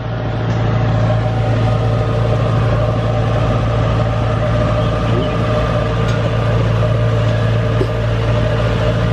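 Diesel engine of farm machinery running steadily at constant speed, a deep even hum with no change in revs.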